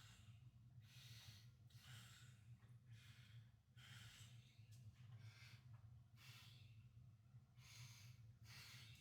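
Faint breathing, soft puffs of breath coming roughly once a second, over a steady low hum.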